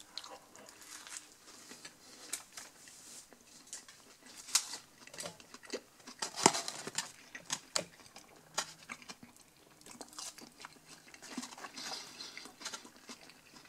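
A person chewing mouthfuls of burger and fries: quiet, irregular mouth clicks and small crunches.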